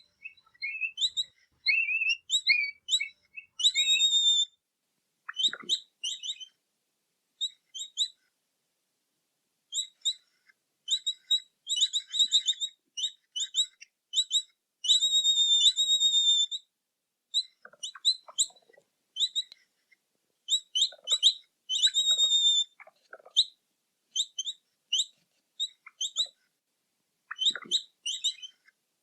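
Capybara making short, high-pitched chirping whistles in quick runs, with pauses of a second or more between the runs.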